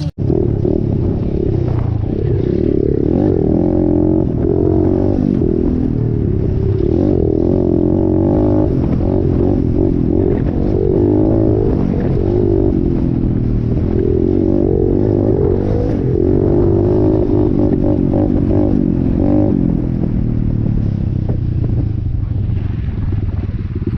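Small off-road vehicle engine running under way, its pitch rising and falling repeatedly with the throttle.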